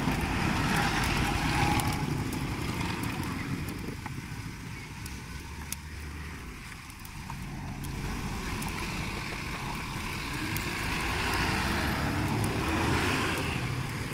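Road traffic going by: a steady vehicle noise that swells, eases to a lull a few seconds in, then swells again later on.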